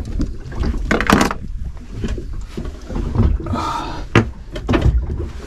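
Knocks and thumps of gear and feet on a fibreglass boat deck, several of them sharp, over a steady low rumble, with a brief hiss about three and a half seconds in.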